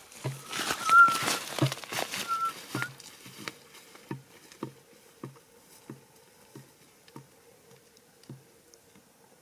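Footsteps through dry scrub and grass, a steady walking pace of about one and a half steps a second, fading as the walker moves away. For the first three seconds, louder rustling of plants brushing close by, with two short high chirps about one and two and a half seconds in.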